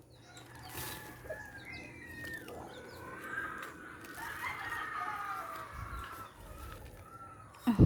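Chickens clucking and calling, several birds overlapping. Just before the end, a short, loud low thump.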